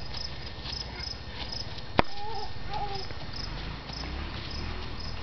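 Insects chirping steadily in short, high, repeating pulses, with one sharp click about two seconds in and a couple of faint short calls just after it.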